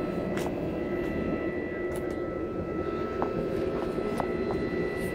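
Steady roar of a lit gas forge together with the steady whine of a hydraulic forging press's pump running, with a few light clicks.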